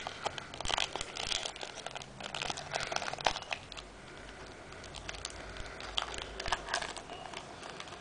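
Foil booster-pack wrapper crinkling and crackling as it is handled and the cards are worked out of it. The crackles come thick and irregular at first, then thin out to scattered ticks after about four seconds.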